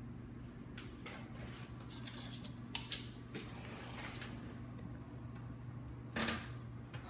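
A low steady hum with a few sharp clicks and knocks around three seconds in, then an oven door being pulled open a little after six seconds.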